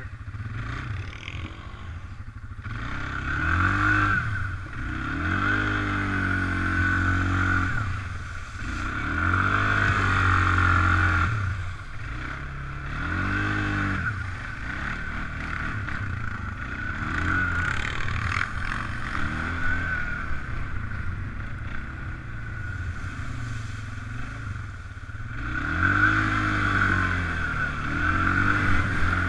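Suzuki ATV engine revving up and falling back again and again as the quad is ridden through mud, standing water and slushy snow, with the machine rattling and mud and slush spraying. The biggest revs come about four seconds in, again about ten seconds in, and near the end.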